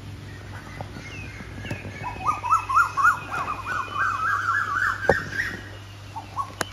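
Asian koel calling: a run of about a dozen short rising notes at about four a second, the series climbing in pitch as it goes, starting about two seconds in. Other birds call faintly around it, and there is a single low thump near the end of the run.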